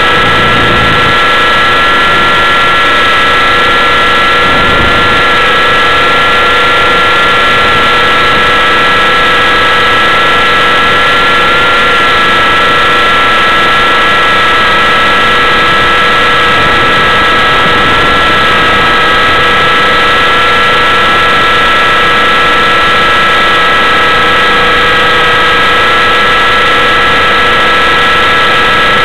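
T-Rex 600 RC helicopter's motor and spinning rotor heard from a camera mounted on the helicopter in flight: a loud, steady whine of near-constant pitch over a dense hiss.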